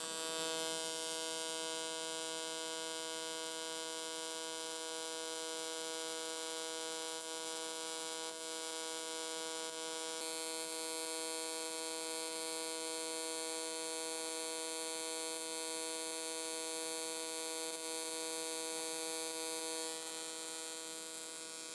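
AC TIG welding arc on aluminum from an Everlast Typhoon 230: a steady, even electric buzz that holds unbroken and cuts off abruptly at the end as the arc is broken.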